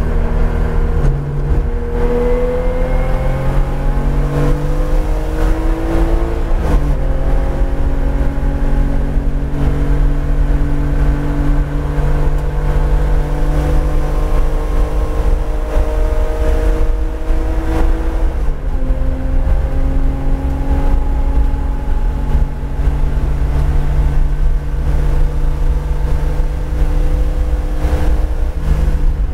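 Porsche 911 GT3 RS's naturally aspirated flat-six, heard from inside the cabin, pulling hard under full acceleration. Its pitch climbs steadily, drops sharply at an upshift about a quarter of the way in and again a little past halfway, then climbs once more.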